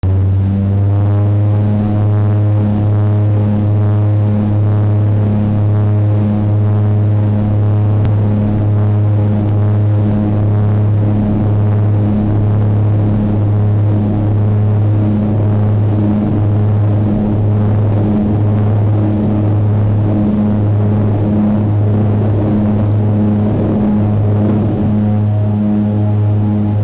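A de Havilland Canada DHC-6 Twin Otter's two PT6A turboprop engines and propellers running at takeoff power, heard from inside the cabin during the takeoff roll. It is a loud, steady propeller drone with a deep hum and a pulsing beat running through it.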